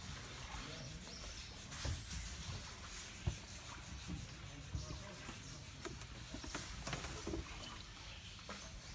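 Wooden shikara being paddled across a lake: faint paddle and water sounds with a few sharp knocks, the loudest about three seconds in, over a low rumble.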